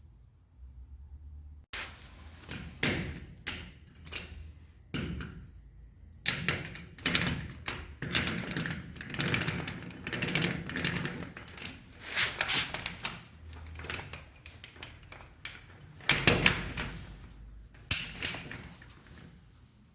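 Irregular clicks, taps and rattles of small parts and tools being handled during hand assembly of a scale model, with louder knocks now and then and the loudest cluster about sixteen seconds in.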